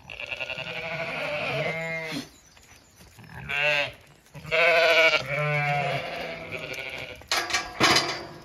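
Zwartbles ewes bleating: three long, wavering bleats, one after another. A few short knocks follow near the end.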